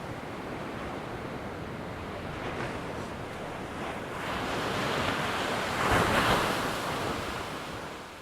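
Ocean surf: a steady wash of waves that swells into one louder breaking wave about six seconds in, then fades away.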